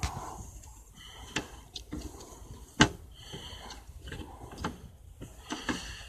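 Scattered clicks and light scrapes of a hand tool working the screws of a license plate while it is taken off, with one sharp click about three seconds in.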